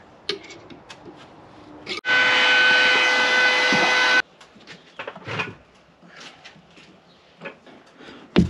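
A handheld power tool running at steady speed for about two seconds, starting and stopping abruptly, with light clicks and handling knocks around it. A sharp thump comes near the end and is the loudest sound.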